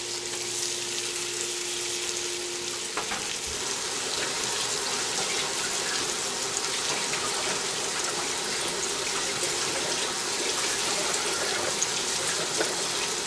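Floured potato cakes frying in hot grease in a cast-iron skillet: a steady sizzle.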